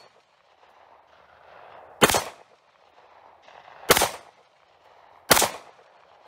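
Three pistol shots from a Star Model BM 9mm handgun, fired singly with about one and a half to two seconds between them.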